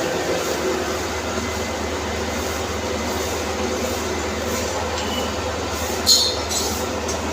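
CNC machine running, a steady mechanical noise over a constant low hum, with one brief sharp high-pitched burst about six seconds in.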